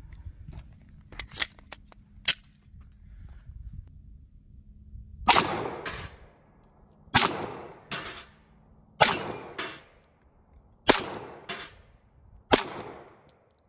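Glock 17 9mm pistol fired five times, slow aimed shots about two seconds apart. Each shot is followed by a fainter click, and a few light clicks come before the first shot.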